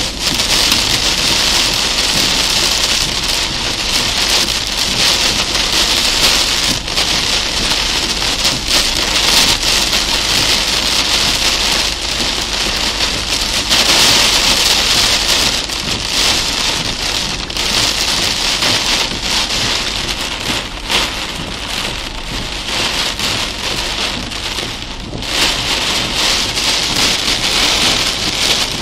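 Heavy rain beating on a car's windshield and roof, heard from inside the cabin: a dense, steady rush of fine pattering.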